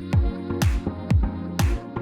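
Background electronic dance music with a steady kick drum about twice a second, cymbal hits and held synth chords.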